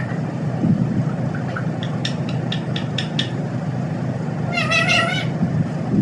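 Rose-ringed parakeet calling: a quick run of about seven short, high chirps about two seconds in, then one wavering, meow-like squawk just under a second long near the end.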